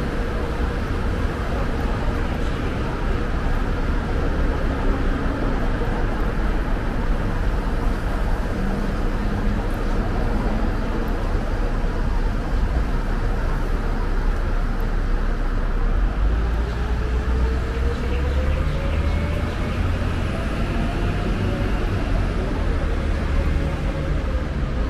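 Steady road traffic noise from a busy overpass and street, a continuous low rumble, with a faint tone rising slowly over several seconds past the middle.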